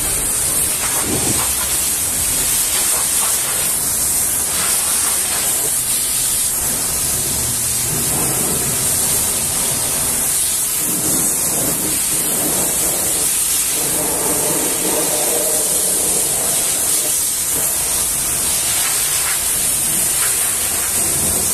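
High-pressure washer jet spraying water onto a truck cab's panels, rinsing off the foam: a steady hiss of spray.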